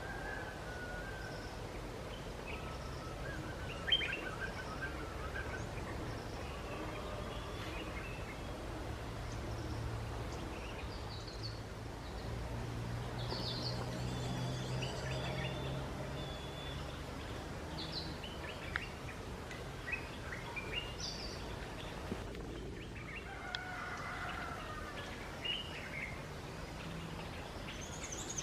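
Wild birds chirping and calling in short, scattered notes over a steady outdoor background, with a low hum that grows stronger in the middle.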